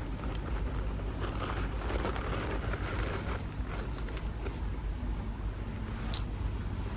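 Outdoor ambience: a steady low rumble with faint scattered rustles and ticks, and one sharp click about six seconds in.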